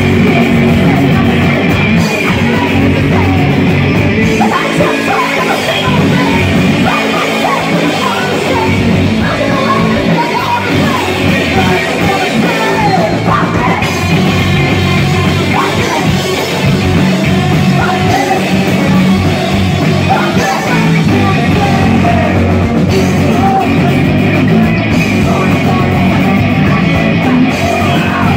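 A punk rock band playing live and loud: electric guitars and a drum kit, with a woman singing and shouting into a microphone.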